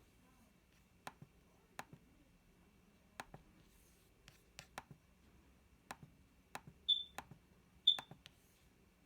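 Small tools clicking and tapping against an iPhone's frame and screen glass as its display is pried open, with two short high squeaks about a second apart near the end.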